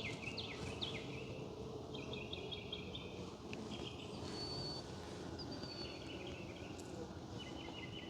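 Songbirds chirping in repeated short phrases and trills, over the steady low hum of honeybees from an open hive.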